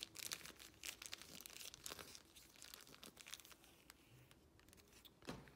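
Thin plastic model-rocket parachute crinkling faintly as it is rolled up in the hands, the crackling thinning out after a couple of seconds.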